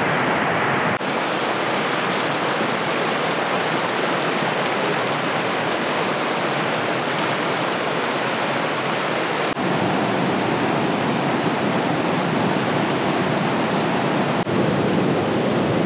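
A fast, clear mountain stream rushing over a rocky bed in a steady, full hiss. The sound shifts abruptly about a second in, again near the ten-second mark, and once more near the end, where it turns rougher and fuller, like white-water rapids.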